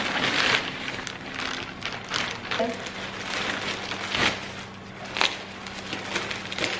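Plastic parcel packaging crinkling and rustling as a postal mailer bag is pulled open and a jacket in a clear plastic bag is slid out, with irregular crackles, loudest at the start.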